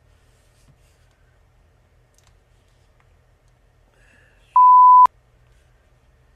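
A single loud electronic beep, one steady pure tone lasting about half a second, comes about four and a half seconds in and cuts off with a sharp click.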